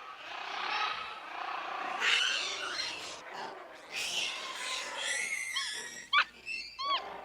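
Monkeys calling: rough, noisy vocalizations, then a run of short high squeaks that rise and fall near the end.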